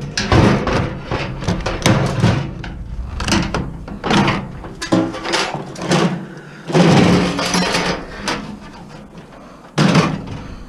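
Irregular knocks, thuds and cracks of plastic and metal parts being pried and broken apart by hand while a circuit board is pulled out of an electronic unit for scrap, with a dense burst of clattering a little past the middle and another sharp knock near the end.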